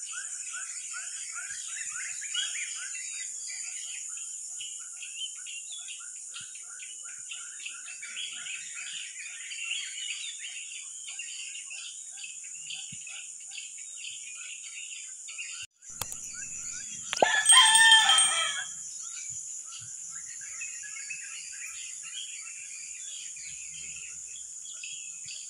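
A steady high-pitched insect drone with many small bird chirps throughout. Roughly two-thirds of the way in, a rooster crows once, loudly, for about a second and a half, its call falling in pitch.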